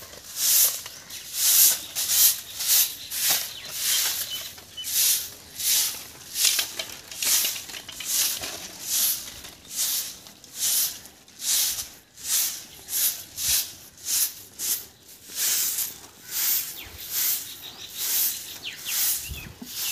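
A short-handled broom of bundled grass stalks swept in quick strokes over a dusty packed-earth courtyard: a rhythmic swishing, roughly two strokes a second.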